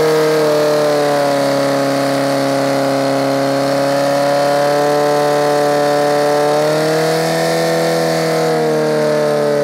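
Portable fire pump's engine running at full throttle, a steady high-revving drone, pumping water through the attack hoses. Its pitch rises slightly and falls back about seven seconds in.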